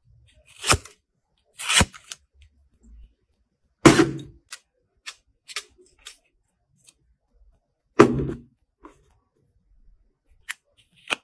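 Sharp clicks and knocks from handling a slim metal folding knife and other small metal pieces, with two heavier knocks about four and eight seconds in.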